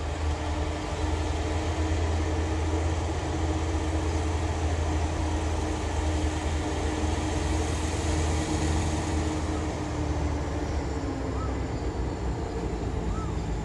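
Diesel locomotive with a Caterpillar engine running under power as the train pulls out: a steady deep engine drone with a humming tone that fades near the end.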